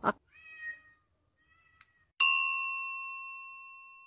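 A faint, short cat meow, then about two seconds in a single bell ding, struck once and ringing out as it slowly fades.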